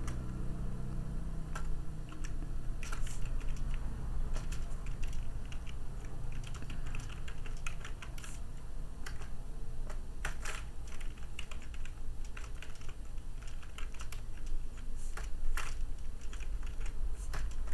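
Typing on a computer keyboard: irregular runs of sharp key clicks as a web address is entered, over a steady low hum.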